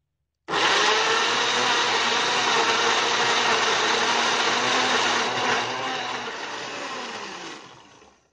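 Electric countertop blender running, blending boiled chickpeas, cream, olive oil, garlic and water into a thick hummus paste. The motor starts abruptly about half a second in, runs steadily, and fades out near the end.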